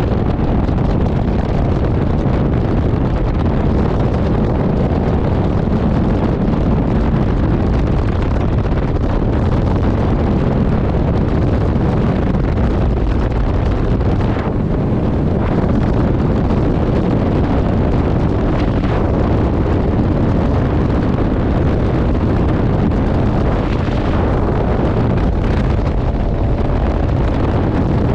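Steady, heavy wind noise on the microphone over the outboard engine and hull of a bass boat running at full throttle, speeding up from about 50 to 76 mph.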